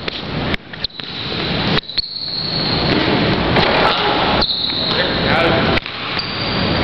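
A basketball bouncing on a hardwood gym floor, several sharp separate thuds, over a dense noisy background that grows louder in the middle.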